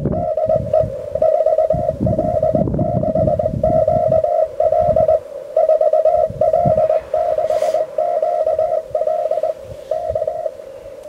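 Morse code (CW) beeping from a portable QRP amateur radio transceiver: a single mid-pitched tone keyed on and off in quick characters with short pauses between them. Under it runs an uneven low rumble.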